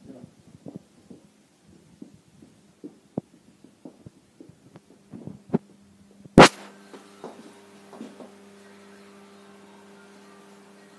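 Irregular soft knocks and bumps of handling, then a single sharp click a little over six seconds in. A steady low hum with a few even tones follows the click.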